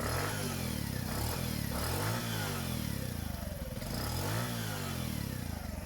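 Bajaj CT100's single-cylinder four-stroke engine running after a rebuild with new crankshaft and gearbox bearings, its speed rising and falling twice. It runs smoothly, without the growl that worn engine bearings gave it.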